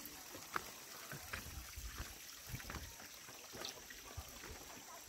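Footsteps of hikers walking along stone rice-terrace walls: scattered soft clicks and low thumps over a faint steady hiss.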